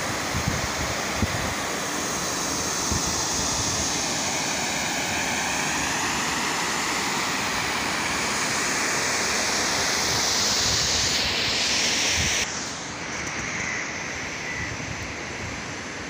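Steady rush of flowing river water, with wind buffeting the microphone; the hiss turns suddenly quieter and duller about twelve seconds in.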